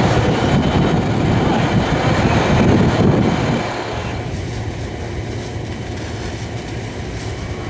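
Steady rumble and hiss of a fire engine running at the pump while hose lines flow water. About four seconds in, the sound drops a little and becomes a thinner, steadier hum.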